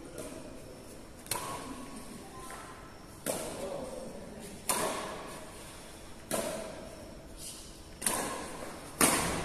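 Badminton rackets striking a shuttlecock in a rally: six sharp hits, one to two seconds apart and coming quicker near the end, each echoing in a large hall.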